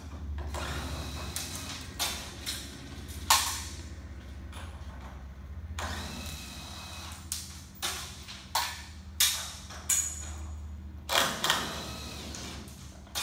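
Irregular sharp clanks and knocks of hand tools and metal hardware being worked on a trailer, the loudest about three seconds in and a quicker run of them in the second half, over a steady low hum.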